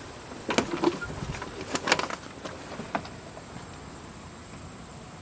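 A steady high-pitched insect trill, with several sharp clicks and knocks in the first three seconds.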